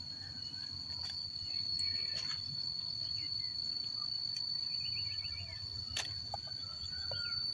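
Steady high-pitched insect drone over a low rumble, with a few faint short chirps around the middle and occasional faint clicks.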